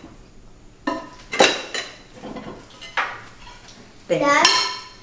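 Plates and cutlery clinking as food is passed and served at a dinner table: several separate sharp clinks with a brief ring, then a longer, louder clatter near the end.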